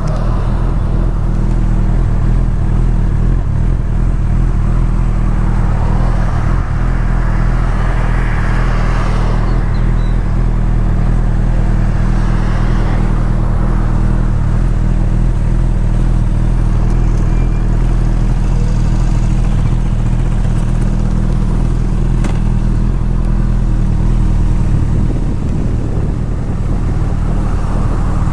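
Honda motorcycle's inline-four engine running steadily at low revs close to the microphone. Other passing vehicles swell and fade over it around the middle.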